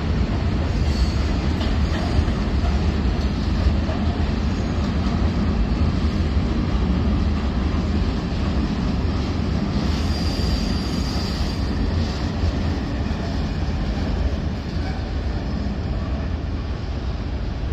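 Container freight train wagons rolling past, a steady rolling rumble of wheels on rail, with a faint high whine about ten seconds in. It eases a little near the end as the last wagons go by.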